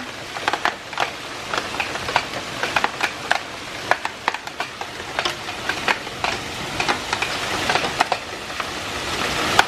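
Hailstones pelting down in a hailstorm: a constant hiss of falling ice with many sharp, irregular clicks of individual stones striking, growing heavier toward the end.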